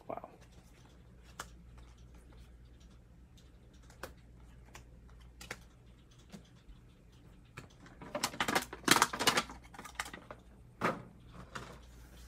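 Handling of Heroclix figure cards and clear plastic packaging on a tabletop: scattered light clicks and taps, then a louder run of rapid plastic crackling about eight seconds in, with a shorter one near the end.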